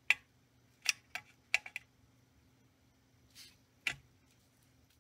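Short, sharp metallic clicks of needle-nose pliers working a small metal retaining clip onto a toy train coupler. There are about seven clicks, most of them in the first two seconds and two softer ones near the end.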